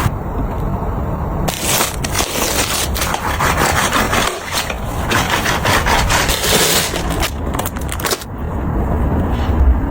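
Hand cleaning noise: steady rubbing and scraping against a surface, broken by many small knocks and clatters.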